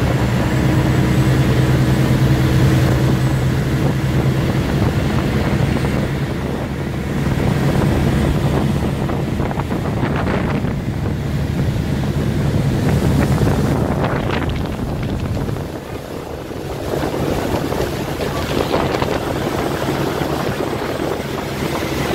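Motorboat engine running steadily with the boat underway, over the rush of water from the wake and wind buffeting the microphone. The level dips briefly about two-thirds of the way through.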